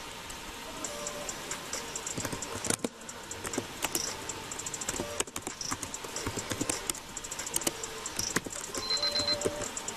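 Typing on a computer keyboard: quick, irregular key clicks that come in flurries.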